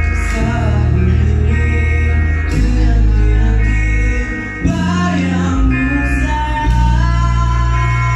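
Live rock band playing: a male voice singing over electric guitars, bass, drums and keyboard.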